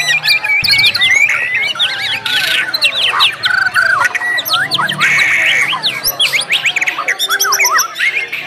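Several white-rumped shamas singing at once in a dense, overlapping chorus of rapid whistles, trills and chirps, with sharp rising 'shot' notes. This is the crowded, competitive singing of a songbird contest.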